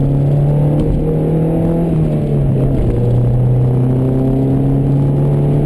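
Honda CRX's 1.6-litre four-cylinder engine, with an aftermarket exhaust, running under way while the car is driven. The engine note holds steady, drops in pitch about two seconds in, then holds at the lower pitch.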